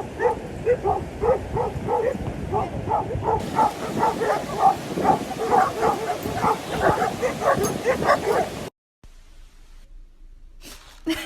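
A dog barking over and over in quick, even succession, about three short barks a second. The barking cuts off suddenly near the end.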